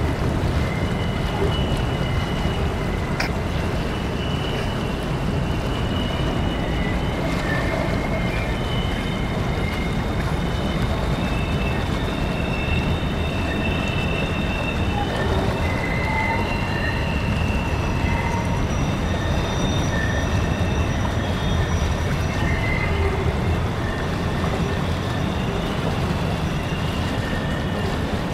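Freight train of double-stack container cars rolling across a steel trestle bridge: a steady low rumble of wheels on rails, with high-pitched squeals from the wheels coming and going.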